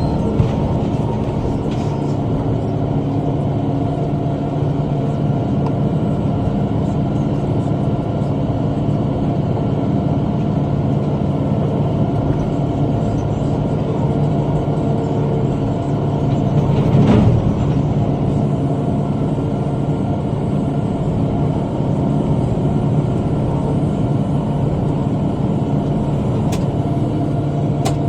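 Tractor engine running steadily while pulling a rotary cutter (bush hog) through brush, with a brief louder surge of noise about two-thirds of the way through.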